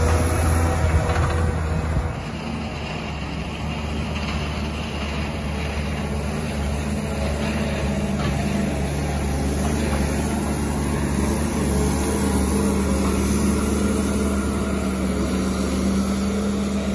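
CAT 930K wheel loader's diesel engine running steadily as it works the snow bank, with a low even hum. The sound drops in level about two seconds in and then holds steady.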